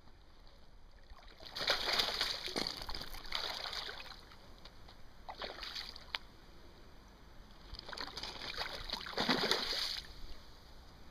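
A hooked salmon splashing and thrashing at the river's surface in three bursts of splashing, about two, five and nine seconds in.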